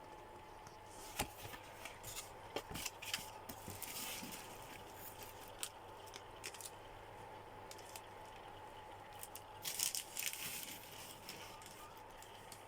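Crinkling and crackling of a self-heating meal pack's plastic packaging being handled, in two bursts with several sharp clicks, over a faint steady hum.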